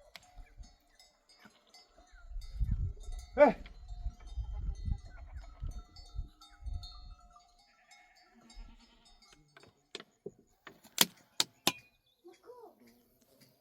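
A sheep bleats once, about three seconds in, over a low rumbling noise and faint ringing bells. Near the end come four sharp knocks in quick succession.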